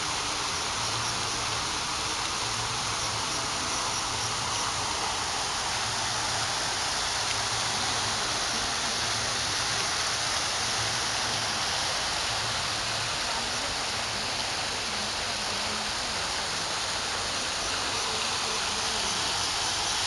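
Water fountain running, its spray falling and splashing in a steady, unbroken rush.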